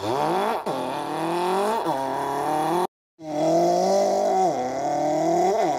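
A person imitating a car engine with their voice, revving up through the gears. The pitch climbs and drops sharply twice, like gear changes. After a brief break for breath about three seconds in, a second held run follows with two more dips in pitch.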